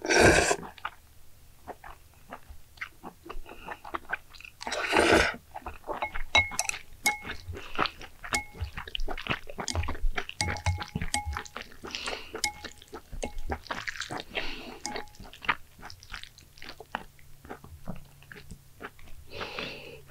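Someone eating noodles close to the microphone: steady chewing and small clicks, with a few louder noisy bursts, at the start, about five seconds in, around fourteen seconds and near the end.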